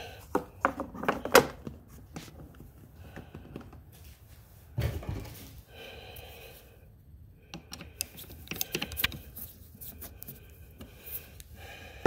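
Hard plastic clicks and knocks as the air filter cover is pushed into place over the air filter of a Honda EU2000i generator. A quick run of clicks comes in the first second or so, a single heavier thump about five seconds in, and another cluster of clicks later on.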